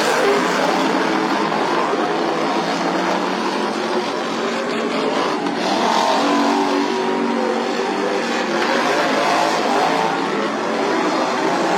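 Several modified racing lawn mowers' small engines running together at high revs, their pitches rising and falling as they race.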